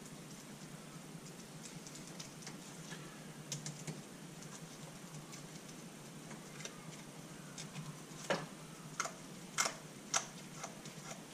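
Light clicks and ticks of small parts being fitted by hand on a Honda CB125E motorcycle engine, with a few sharper clicks about eight to ten seconds in.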